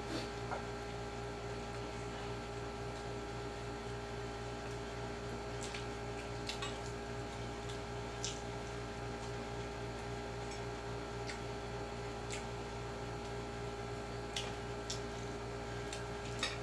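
Steady electrical hum from a room appliance, with a few faint scattered clicks of eating and utensils.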